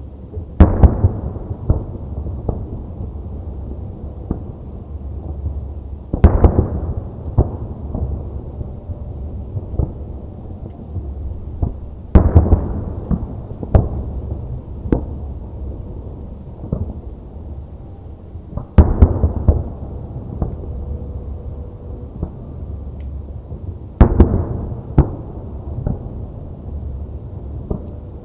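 Aerial fireworks shells bursting: a big boom about every six seconds, each trailing into a rolling echo, with smaller sharp pops in between.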